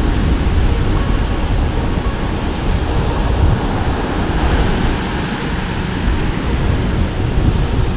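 Wind buffeting the microphone with a heavy low rumble, over the steady wash of ocean surf.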